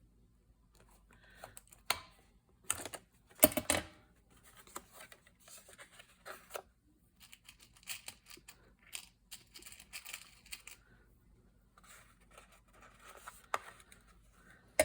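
Rustling paper and light clicks as eyelets are set into paper file folders with an eyelet setter, with a louder sharp knock about three and a half seconds in.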